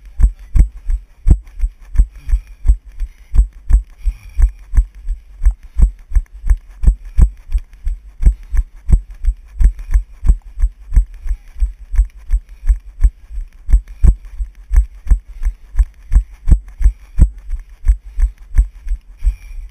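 Running footfalls on a dirt trail, picked up through a body-worn GoPro: steady low thumps about three a second, one with each stride as the camera jolts.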